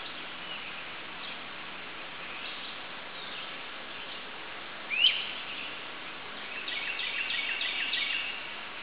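Wild songbirds calling over a steady background hiss: a few faint chirps, one loud sharp rising note about five seconds in, then a quick run of five or six repeated down-slurred notes near the end.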